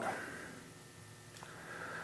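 Faint room tone with a single soft click about one and a half seconds in.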